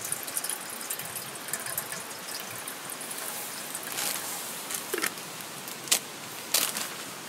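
Water trickling and dripping, with two sharp, louder strokes near the end.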